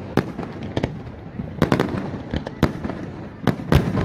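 Aerial firework shells bursting overhead: about eight sharp bangs at uneven intervals, several close together, over a steady low rumble of the display.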